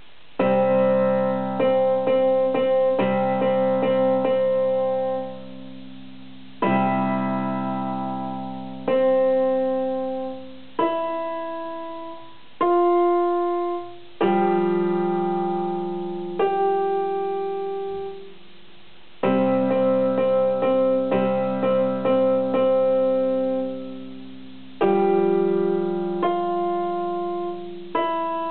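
Electronic keyboard in a piano voice playing a slow, simple tune one note at a time, each note ringing and fading. Fuller chords come in every five or six seconds.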